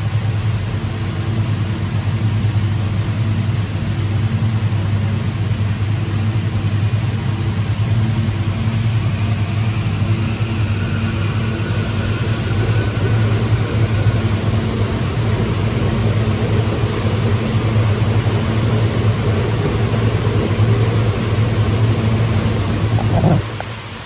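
SEPTA Silverliner V electric multiple-unit train pulling out of an underground station platform and passing close by: a loud, steady low electric hum with a faint higher whine in the middle as it gathers speed. The sound drops off suddenly about a second before the end.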